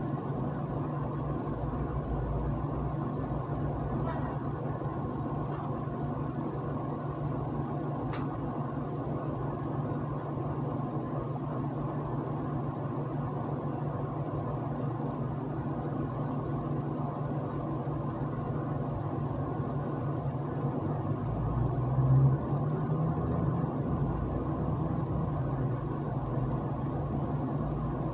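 Steady low mechanical hum with a few faint ticks, growing louder for a few seconds about twenty-two seconds in.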